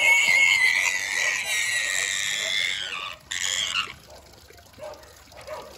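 Pig squealing while being held and washed: one long high-pitched squeal lasting about three seconds, then a second, shorter squeal, with the sound dropping away after about four seconds.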